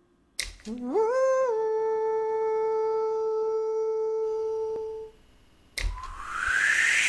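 A synthesized tone that climbs in a few quick steps, then holds one steady humming pitch for about four seconds and fades. Near the end a click is followed by a rising whoosh.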